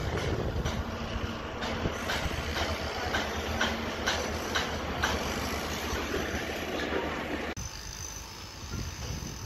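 Construction-site machinery noise: a steady rumble with a regular clicking about twice a second. It cuts to a quieter site din near the end.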